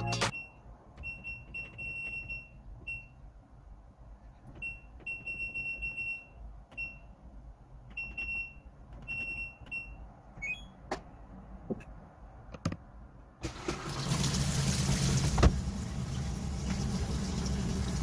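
LG top-loading washing machine control panel beeping as its buttons are pressed: a series of short beeps, a few held longer. A few clicks follow, then, about two-thirds of the way through, water starts rushing into the tub with a low hum as the machine begins to fill.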